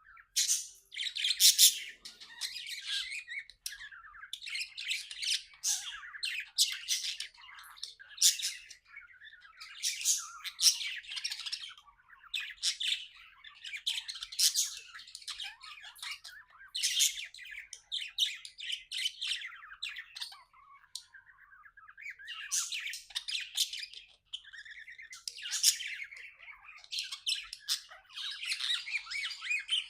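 Budgerigar chirping in quick bursts every second or two, with softer warbling between them.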